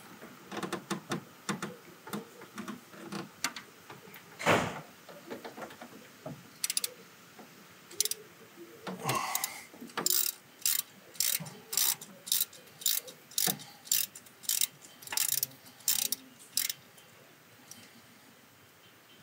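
Socket ratchet clicking in short back-and-forth strokes as it loosens the timing belt tensioner pulley bolt, about two clicking strokes a second through the second half. Before that come scattered tool clicks and one louder knock a few seconds in.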